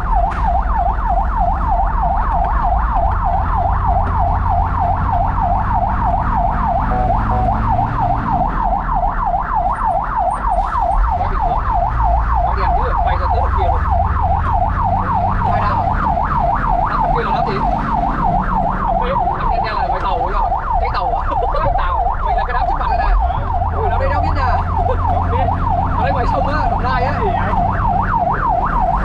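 Fire truck's siren on a fast yelp, a rising-and-falling wail about three times a second, heard from inside the cab over the low rumble of the truck's engine.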